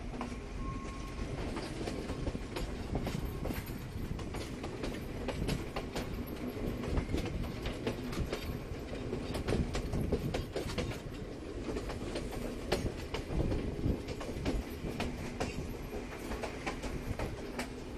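Passenger train running on the rails, heard from an open door of a moving carriage: a steady rumble of wheels with frequent irregular clicks and clatter over the track.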